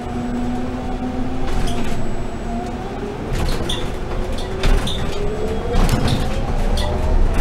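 Proterra ZX5 battery-electric bus, heard from inside the cabin: the electric drive motors whine, holding a steady pitch and then, from about three seconds in, rising steadily as the bus picks up speed, over a low road rumble. Several sharp knocks and rattles sound through the cabin.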